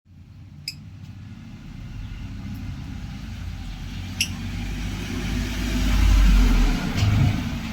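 Lovebird giving three short, sharp chirps a few seconds apart over a steady low rumble that swells near the end.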